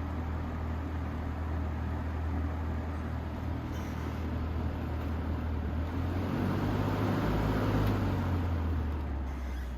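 Vintage Air King PL20P box fan with a General Electric export motor running on low speed: a steady low motor hum under a soft rush of moving air.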